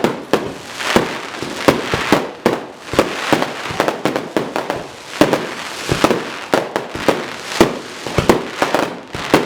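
Fireworks going off: an irregular string of sharp bangs, several a second, with crackling between them.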